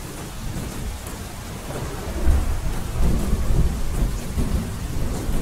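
Steady rain falling, with a low rumble of thunder building from about two seconds in.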